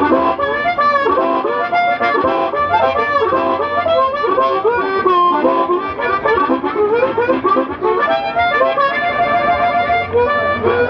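Blues harmonica playing a quick melodic phrase, notes changing several times a second, some bent and sliding in pitch.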